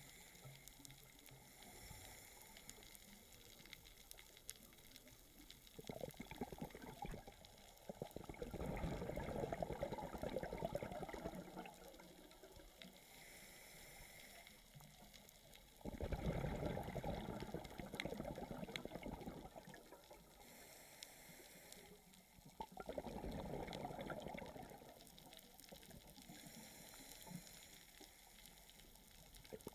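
Scuba diver breathing through a regulator, heard underwater: a short hiss on each inhale, then a burst of exhaled bubbles, three breaths about seven seconds apart.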